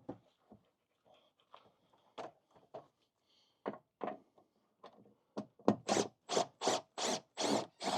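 Crowbar levering a long deck screw up out of wooden decking: scattered small knocks and scrapes, then, about five seconds in, a quick run of about seven loud scraping strokes, roughly three a second, as the screw is worked free.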